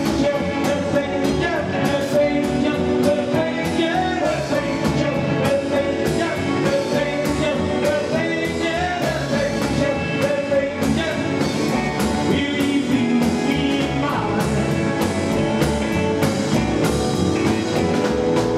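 Live rock 'n' roll band playing: a man singing over acoustic guitar, upright double bass and a drum kit keeping a steady beat.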